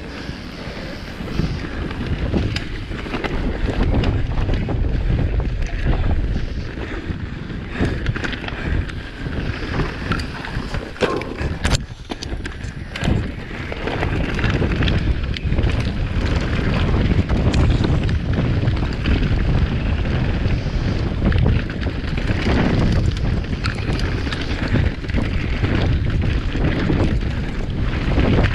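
Electric mountain bike ridden fast down a dirt and stony singletrack: tyres running over the dirt and the bike rattling with many short knocks over bumps, under a heavy rumble of wind buffeting the microphone.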